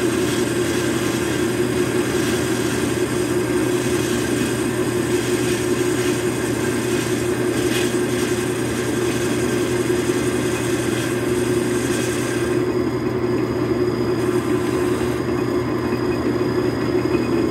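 Metal lathe running with its tool cutting the hub of a pulley held in the chuck: a steady motor and gear hum under a rough, scratchy cutting noise. About three-quarters of the way through, the cutting noise stops while the lathe keeps running.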